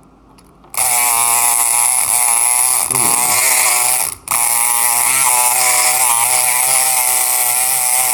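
Kronos electric lock pick gun buzzing as its vibrating pick works a lock's pins. It starts under a second in, stops for an instant about four seconds in, then runs on.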